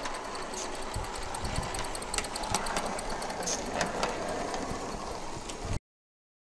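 Gauge 1 live steam GWR 14xx tank locomotive and its coach running on the track: a steady mechanical clatter with scattered clicks. The sound cuts off suddenly near the end.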